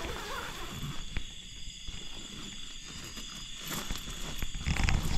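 Night insects trilling steadily, high-pitched, with scattered rustles and knocks of someone handling gear at close range. The knocks grow louder near the end.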